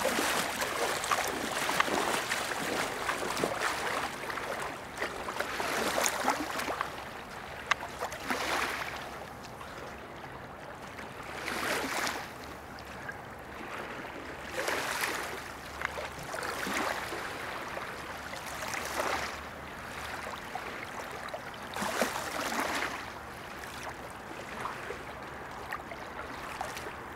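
River water splashing and swishing as a swimmer wades in and then swims slow strokes. At first the splashing is continuous, then it comes as separate swishes every two to three seconds.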